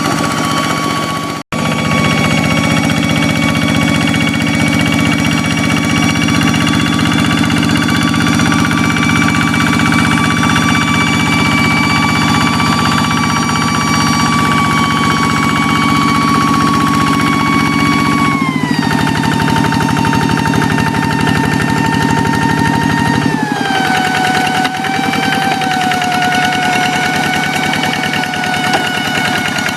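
The single-cylinder Kubota diesel of a hand tractor running with a rapid, even chug and a clear high whine over it. The whine drops in pitch twice, in quick steps, later on.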